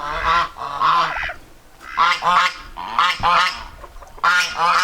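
Farm poultry calling: a run of loud, repeated pitched calls, many of them in quick pairs, about nine in all.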